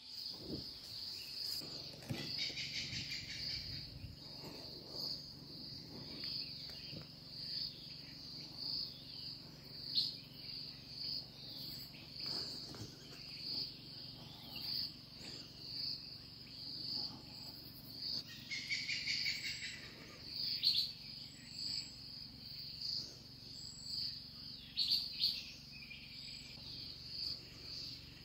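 Insects chirping in a high, evenly pulsing trill that runs on steadily, with a few brief extra chirps standing out a couple of times, the clearest about two-thirds of the way through.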